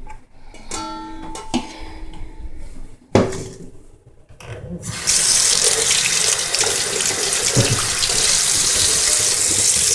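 Kitchen tap turned on about halfway through, water running steadily into a stainless steel bowl in the sink. Before that, a few clanks and a brief metallic ring from handling metal kitchenware, with one sharp knock.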